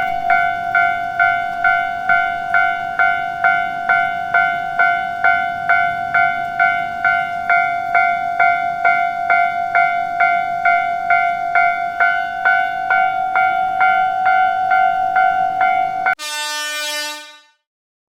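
Japanese railway crossing warning bell ringing in a steady kan-kan-kan, a little over two strikes a second. About 16 seconds in it stops and a short train horn blast sounds for about a second and a half.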